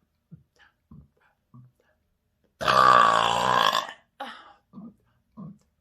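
A person gulping air in short, regular gulps about every half second, then letting out one loud, long, pitched burp of about a second and a half a little before the middle. A brief second burst follows, then the gulping starts again.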